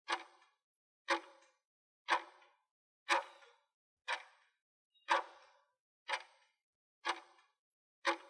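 Clock-tick sound effect for a quiz countdown timer: nine sharp ticks, one a second, each fading quickly.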